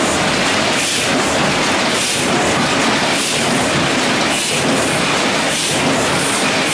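Heidelberg Original Cylinder SBG 56 x 77 letterpress cylinder press running, a loud, steady mechanical clatter that repeats about once every second and a bit as the machine cycles through each sheet.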